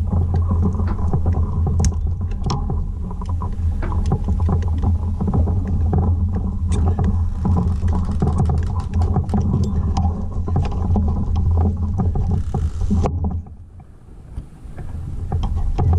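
Steady low rumble with many small clicks and ticks over it; about thirteen seconds in it cuts out and it fades back up about two seconds later.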